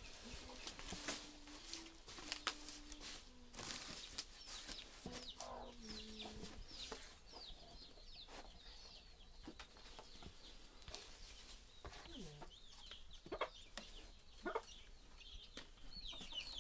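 Chickens clucking faintly, with short, high, falling peeps repeated through it and scattered light knocks and taps.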